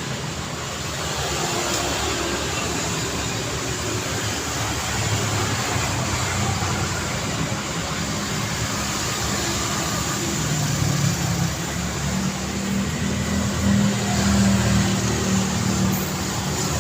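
City street traffic: a continuous wash of car engines and tyre noise. A vehicle's engine hum grows louder in the second half and is loudest shortly before the end.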